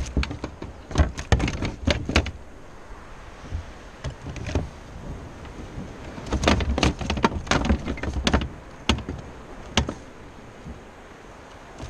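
Knocks, clatter and scraping on the hull of a plastic fishing kayak as things are handled on deck, in two bursts: one in the first two seconds and another from about six to eight and a half seconds. A couple of single sharp clicks follow near the end.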